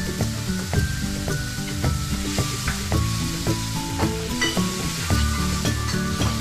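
Food sizzling as it fries in a pan, stirred with a wooden spatula, with background music playing over it.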